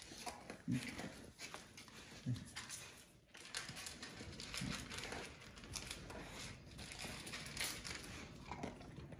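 A red-nose American pit bull terrier eating dry kibble from a metal bowl: irregular crunching and chewing with light clinks against the bowl. A few short low sounds come through the chewing.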